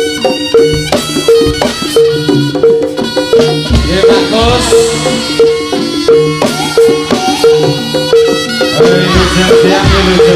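Live Javanese jaranan (turonggo) ensemble music: a fast, steady pattern of struck pitched percussion over drums, with heavier low drum strokes twice.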